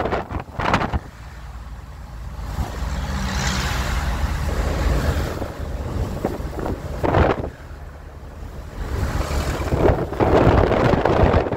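Car driving on a highway, heard from inside the cabin: steady low road and engine rumble with wind noise, swelling and growing rougher in the last couple of seconds.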